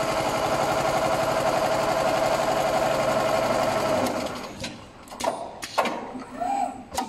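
Richpeace CNC sewing machine stitching at speed, a steady, dense mechanical clatter of the needle head that stops about four seconds in, followed by a few sharp clicks and knocks.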